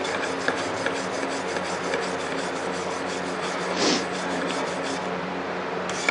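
Brass-bristle grill brush scrubbed back and forth over hot steel in quick rasping strokes, about four a second, with one louder scrape about four seconds in and a short pause near the end. The soft brass rubs onto the darkened metal to give it a copper-coloured finish.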